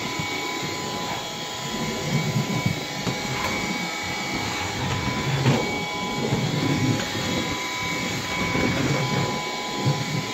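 Bissell PowerGlide cordless stick vacuum running on low power with its brush roll off: a steady motor whine under an uneven low rumble as the head is pushed back and forth over hard floor.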